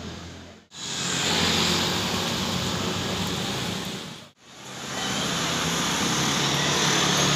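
Steady, loud outdoor street noise without clear detail, cutting out abruptly twice, under a second in and about four seconds in, and fading back up each time.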